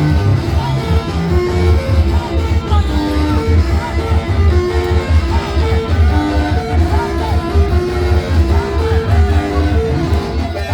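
Instrumental praise music: guitar-led with a strong, steady bass beat and held notes.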